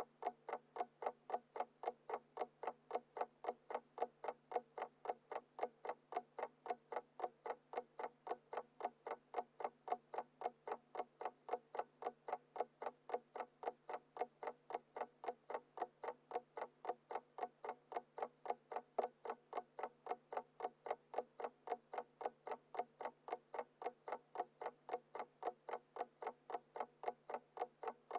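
Alarm clock ticking in a steady, even rhythm, every tick alike.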